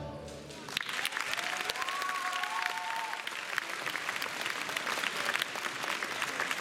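Audience applause breaking out about a second in, just after the dance music stops, and continuing steadily.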